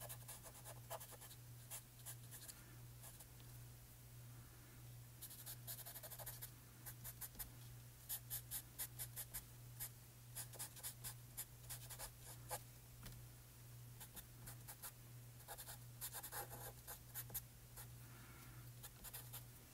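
Coloured pencil scratching on card in bursts of quick, short strokes, faint, over a steady low hum.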